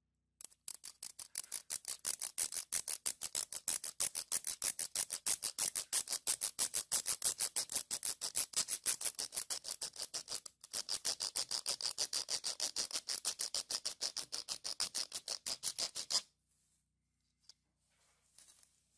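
Serrated knife sawing back and forth across the plastic minute-hand shaft of a quartz clock movement, cutting it down. Quick, even strokes, several a second, with a brief pause about ten seconds in; the sawing stops near the end.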